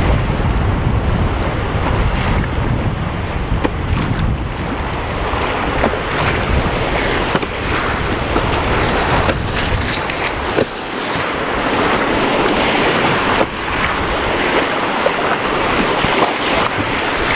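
Rushing, churning river water as a canoe runs big-water waves, with wind buffeting the microphone. The low rumble of the buffeting eases about ten seconds in.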